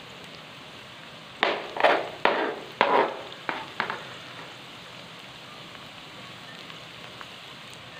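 About six sharp knocks of a kitchen knife cutting a lemon on a plastic cutting board, in the first half, over the steady sizzle of onions frying in ghee.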